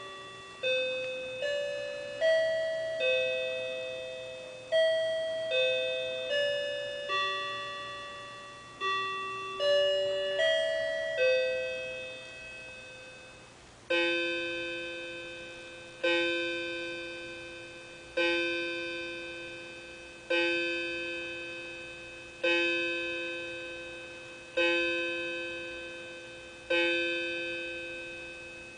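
A quartz wall clock's speaker plays its digitally recorded music-box chime: a melody of four phrases of four notes each. About halfway through, the hour strikes for 12 o'clock begin, evenly spaced about two seconds apart, each ringing out and fading.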